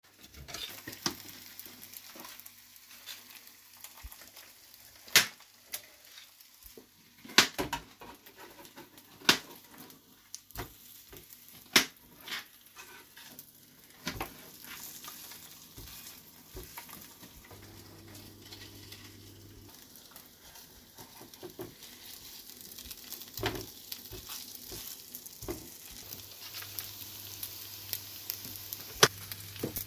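Rashers of back bacon sizzling in a non-stick frying pan, a steady hiss. Sharp clicks and knocks of kitchen utensils come every few seconds, the loudest of them about five, seven and nine seconds in and again near the end.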